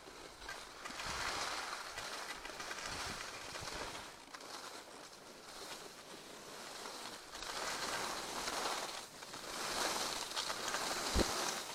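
Skis hissing and scraping over groomed, packed snow, swelling and fading with each turn. A brief knock comes near the end.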